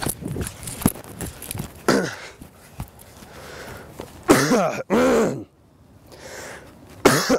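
A man out of breath from running, panting and wheezing, then two loud, strained hacking coughs a little after the middle.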